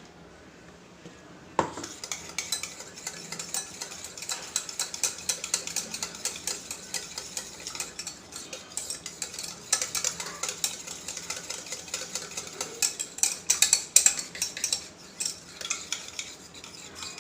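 A spoon stirring green chutney into curd in a bowl, scraping and clicking quickly against the bowl's sides. It starts about a second and a half in, after a quiet moment.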